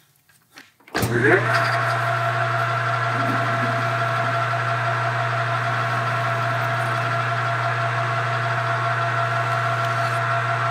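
Metal lathe switched on about a second in, its motor spinning up with a brief rising whine and then running steadily with a hum and whine as it turns a small part in the chuck.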